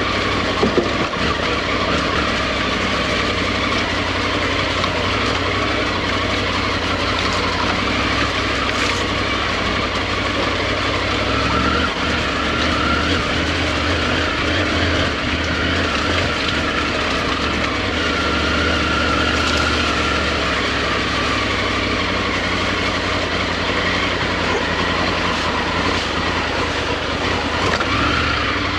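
Motorcycle engine running steadily while ridden off-road, under a continuous rush of wind and riding noise.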